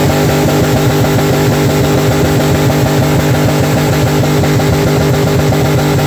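LS V8 in a squarebody pickup held against the rev limiter during a burnout: a steady high-rpm drone chopped by rapid, even limiter cut-outs.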